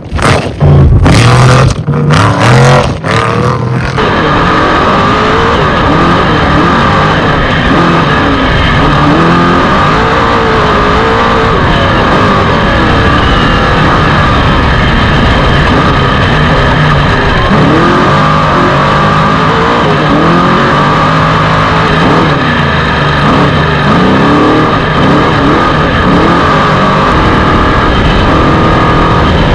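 Off-road race truck engine running hard, its pitch rising and falling continuously with dense road and wind noise. Irregular loud gusts come in the first few seconds before the sound settles.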